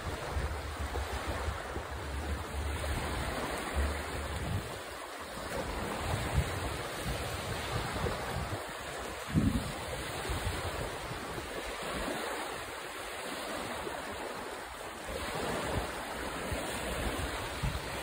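Steady rush of wind and shoreline surf, with wind buffeting the microphone as a low rumble in the first few seconds. A brief thump about nine seconds in.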